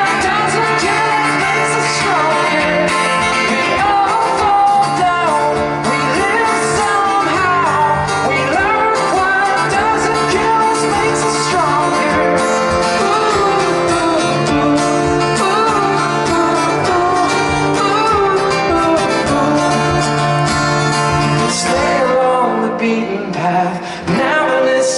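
A live song played through a PA: guitar-backed music with a sung melody, thinning out briefly near the end before the full band comes back.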